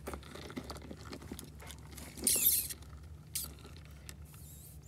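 A small plastic doll being dipped in and lifted out of a plastic bowl of water: light taps, drips and splashes, with short squeaks. The loudest is a splashy, squeaky burst about two seconds in.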